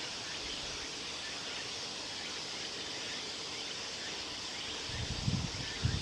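Steady outdoor background hiss, with a few low thumps near the end.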